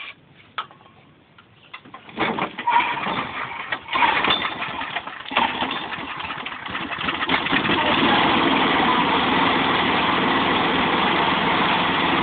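Walk-behind lawn mower's small engine, converted to run on 100% ethanol, being pull-started after a squirt of starter fluid. Pull-cord cranking from about two seconds in, then the engine catches, runs unevenly at first and settles into a steady run about eight seconds in.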